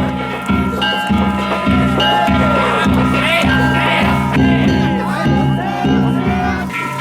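Danjiri float music: a big taiko drum beaten in a steady rhythm of a little under two strokes a second, with hand gongs ringing over it and the float pullers shouting and calling out.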